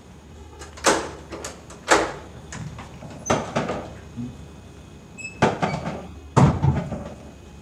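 A door being unlatched and opened: a series of sharp clacks and knocks from the lock, handle and door.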